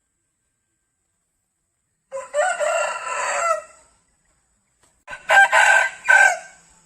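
A rooster crowing twice: a call about two seconds in lasting under two seconds, then a second, choppier call about five seconds in.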